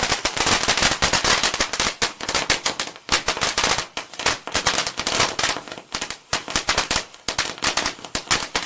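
A string of firecrackers going off in a rapid, dense crackle of sharp bangs, with a few brief lulls.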